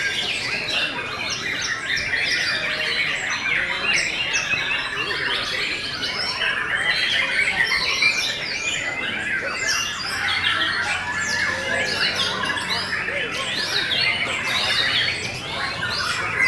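White-rumped shama (murai batu) singing a fast, varied song of short whistled notes, over a dense chorus of other caged songbirds.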